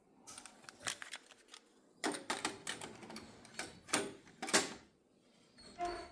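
A run of sharp mechanical clicks and clunks from a Kenwood KX-660HX cassette deck being operated by hand. The loudest clunk comes a little past halfway, and there is a short pause near the end.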